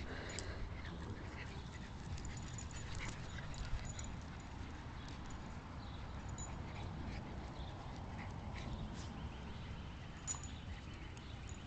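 Small dogs making short vocal sounds as they play, chasing and wrestling one another, with scattered short scuffs and a steady low rumble underneath.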